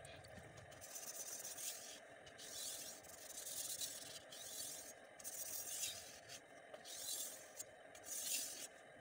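Pirge bullnose butcher knife blade scraping across a wet whetstone in hand-sharpening strokes, about seven rasping strokes roughly a second apart.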